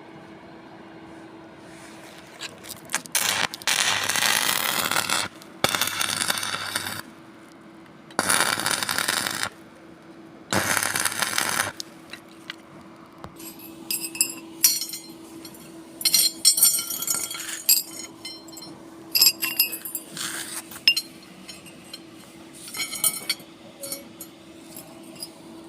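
Four bursts of electric arc welding crackle and sizzle, each one to two seconds long, with a mains buzz beneath them. A run of sharp metallic clinks and taps on steel follows in the second half, over a steady faint hum.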